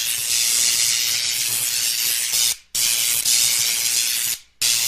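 Loud, steady hiss from an intro's sound effect, cutting out briefly twice, about two seconds apart.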